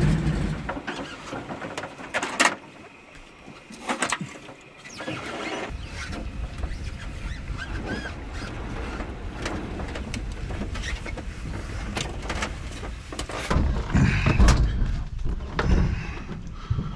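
Float plane coming in to land on a lake: a steady low rumble of engine and rushing air and water. A couple of sharp clicks come in the first few seconds, and the rumble turns louder and gustier near the end.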